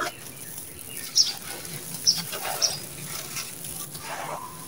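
Dry, gritty sand-cement with small white stones crunching and crumbling as hands scoop, squeeze and press into the pile. The grainy rustle carries a few sharp crackles.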